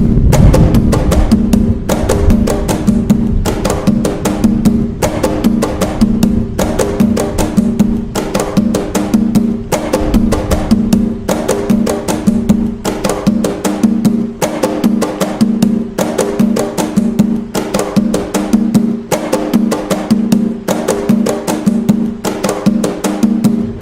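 Atabaque hand drums playing the nagô rhythm of Umbanda: a fast, steady, repeating pattern of hand strikes with a ringing low drum tone that recurs about every beat.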